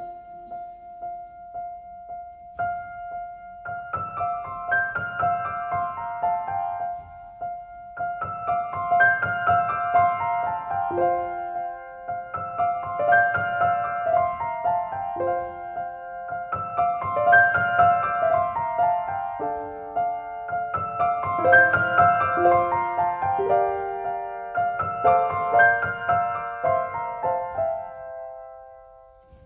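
Gentle piano music: repeated phrases of notes running downward over a soft bass, ending with the last notes fading out near the end.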